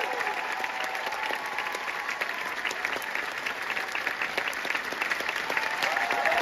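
Theatre audience applauding: dense, steady clapping that fills the hall.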